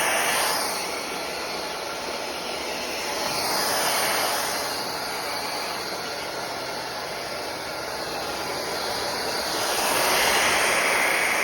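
Cordless stick vacuum cleaner running steadily, its whoosh swelling and easing as it is worked across the floor.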